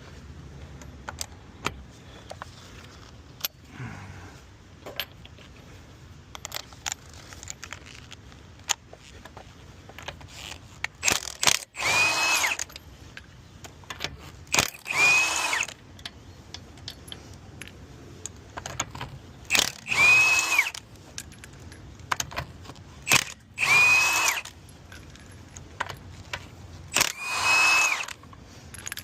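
Power wrench on a car's lug nuts, run in five short bursts of about a second each, each winding up to a steady whine. Light metallic clicks and clinks of the nuts and tools come in between.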